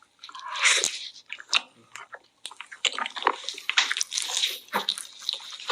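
Wet, close-up chewing and biting of raw chopped octopus (san-nakji) dipped in chojang, with irregular smacking mouth noises.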